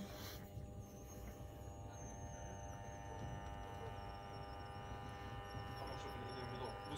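Faint steady electrical hum made of many steady tones, over a low rumble.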